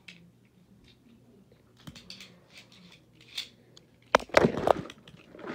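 A Lego-brick spinning top and a plastic Beyblade spinning in a battle, ticking and knocking against each other, with a run of louder, rapid clattering about four seconds in.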